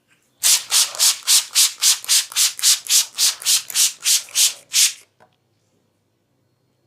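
A masseur's hands rubbing briskly in a massage, about four quick strokes a second, stopping about five seconds in.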